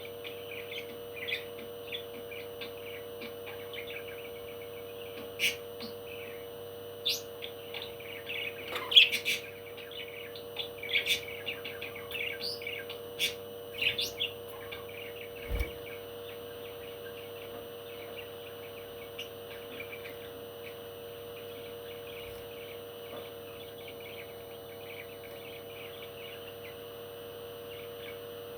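Parrot chirping and calling: a constant patter of soft chirps, with a busier stretch of louder, sharp calls in the first half, over a steady hum.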